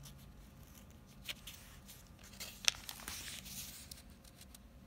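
Thin Bible pages being turned by hand: faint paper rustling and crackling with small clicks, a sharper click about two and a half seconds in and a brief swish of a page just after. The pages are brand new and stick together as they are separated.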